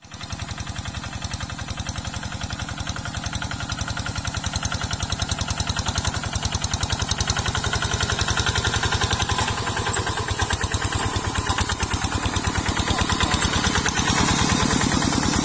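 Kubota RD single-cylinder diesel engine of a two-wheel hand tractor with iron cage wheels, running steadily under load while ploughing dry soil, its fast, even firing pulse growing louder toward the end.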